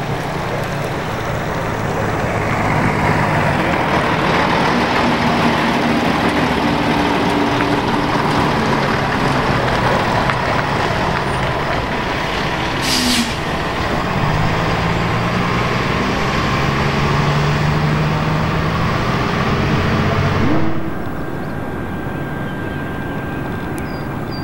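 Pilatus PC-12's single turboprop engine running loud and steady as it lands and rolls out, with a brief hiss about halfway through. About 20 seconds in it cuts off suddenly, leaving a quieter steady hum.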